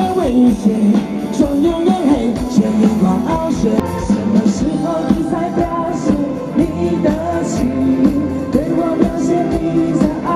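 Live pop band playing a song: a man and a woman singing through microphones over drums, electric bass and keyboard, with a steady kick-drum beat.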